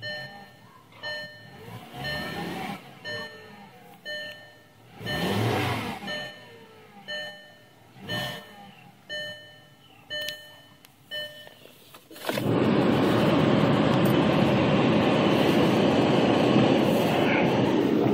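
2009 Volkswagen Jetta engine running cold, revved briefly twice, about two and five seconds in, under a dashboard warning chime that dings about once a second. After about twelve seconds a loud, steady rushing noise takes over and covers everything.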